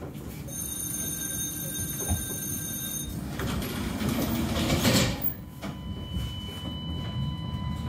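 Inside a Tatra T4D tram car: a steady low rumble of the car under way. A high-pitched whine runs until it cuts off about three seconds in, then a broad hiss swells to a peak about five seconds in and drops away.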